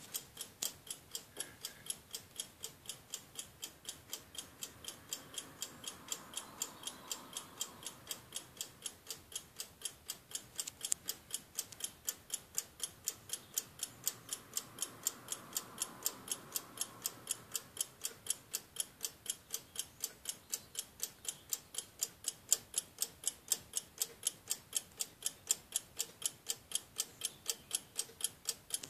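French Pinocchio automaton alarm clock ticking steadily, about four ticks a second.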